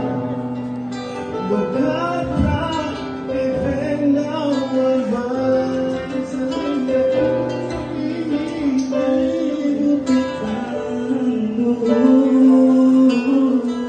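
Male vocal group singing a slow song in harmony: one lead voice carries a wavering melody over chords held by the other men.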